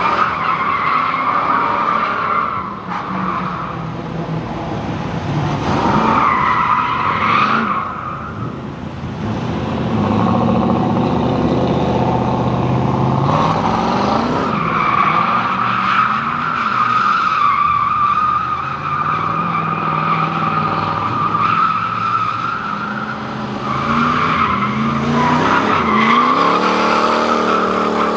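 Compact pickup truck drifting: the tyres squeal in long stretches of steady high screech while the engine revs rise and fall underneath. The squeal breaks off briefly about a quarter of the way in and again near the middle, and holds longest through the second half.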